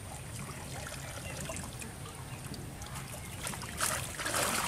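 Water trickling and splashing as a wet cast net is gathered in and lifted out of a pond, louder near the end.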